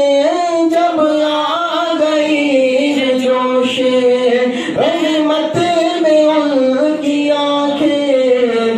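A man singing a naat solo into a handheld microphone: one unbroken, drawn-out melodic line of held notes that bend up and down, sliding lower near the end.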